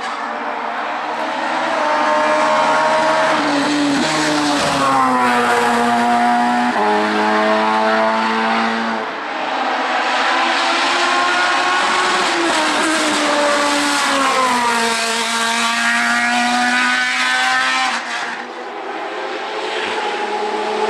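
Hill-climb race car engine under hard acceleration, its pitch rising and then dropping abruptly at each gear change, with several upshifts in a row.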